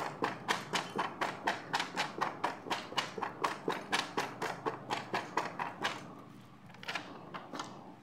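Fingers tapping rhythmically on a foil-wrapped box and a doll's clear plastic package, about four taps a second, stopping about six seconds in. Near the end the plastic package crinkles twice as it is handled.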